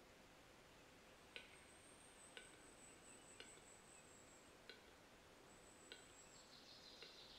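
Male western capercaillie singing its display song, faint: single sharp clicks about once a second, six in all, then near the end a hissing, scraping phrase that slides down in pitch, the whetting phase of the song.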